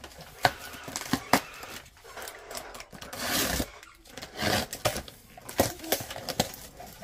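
Box cutter slitting the packing tape on a cardboard box, with scraping and a couple of longer tearing swishes about three and four and a half seconds in, among small knocks and clicks of hands on the cardboard.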